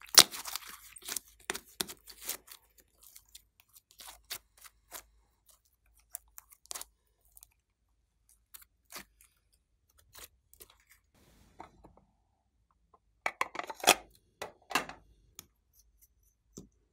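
Glossy slime squeezed and folded by hand, giving irregular sticky clicks and crackles, densest at the start and again in a burst about 13 seconds in. A single click near the end.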